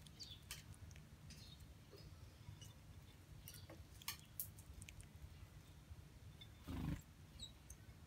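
Near silence: a steady low background rumble with a few faint ticks, and one brief louder rustle near the end.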